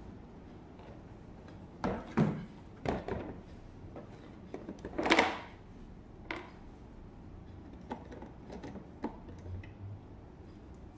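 Large plastic toy castle playset being handled and turned around on a tabletop: a series of knocks and rubs, the loudest a short scrape about five seconds in, then a few lighter clicks as its small plastic elevator piece is handled.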